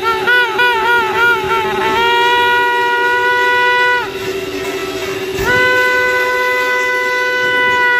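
Conch shell (shankh) blown: about six short blasts with a wavering pitch, then two long steady blasts with a short break between them. A second, lower steady tone runs underneath.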